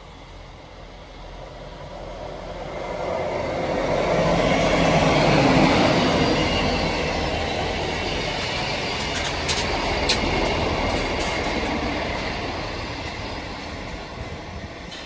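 Liverpool Lime Street to Peterborough diesel multiple unit passenger train running past on the rails, growing loud to a peak about five seconds in and then slowly fading. Two short sharp high squeaks come from the wheels about nine and ten seconds in.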